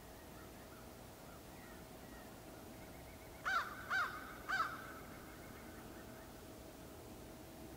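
A crow cawing three times in quick succession, about half a second apart, a little past the middle.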